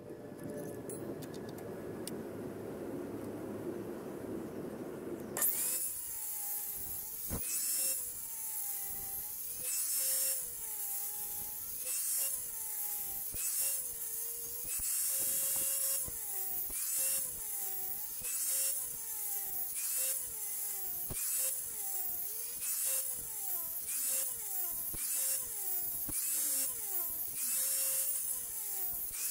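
Stanley circular saw cutting into a pine beam in repeated passes. It starts about five seconds in, and its motor whine dips in pitch and recovers about once a second as the blade takes and sheds load in the wood.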